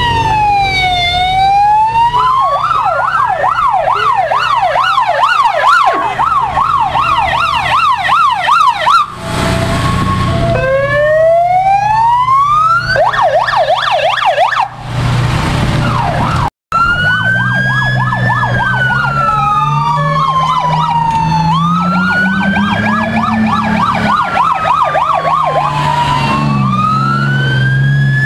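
Emergency vehicle sirens sounding as vehicles drive past, switching between a slow rising-and-falling wail and a fast yelp, with more than one siren overlapping. Two brief rushing noises come before the middle, the sound drops out for an instant about midway, and a vehicle engine drones underneath in the second half.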